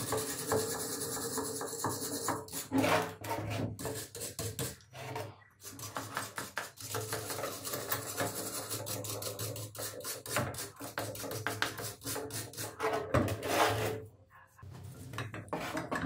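Rusted cast-iron Mimoso hand-crank coffee grinder being turned, its rusty mechanism grating and scraping with each turn of the crank. It pauses briefly twice.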